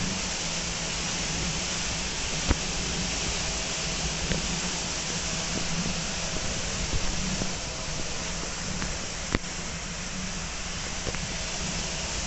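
WashTec SoftCare 2 Pro rollover car wash spraying active foam onto a car: a steady hiss of spray over a low machine hum. A few sharp clicks or knocks sound through it, the loudest about two and a half seconds in and near nine seconds.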